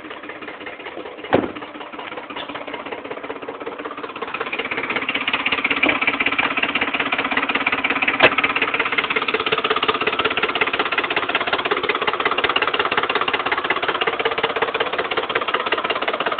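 Ford 5.4-litre V8 of a 2008 F-150 idling with a steady, rapid knocking clatter that sounds like an old diesel tractor; the owner is not sure whether it is an oil pump or a timing fault. The engine grows louder about four seconds in, and there is a sharp click about a second in and another about eight seconds in.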